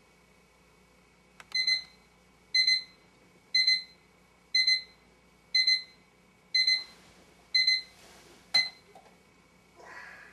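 Bedside electronic alarm clock beeping, eight short high beeps about once a second, the last one cut short by a click as it is switched off. Bedding rustles as the sleeper stirs under the comforter.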